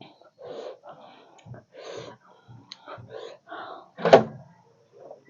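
Soft, indistinct voice sounds and breaths, with a single sharp thump about four seconds in.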